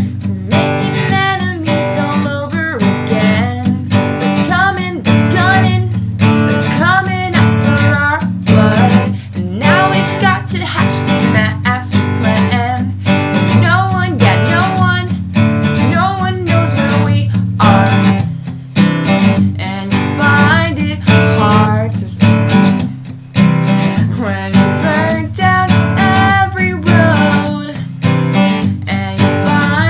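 Acoustic guitar strummed in a steady rhythm, accompanying a woman singing a song.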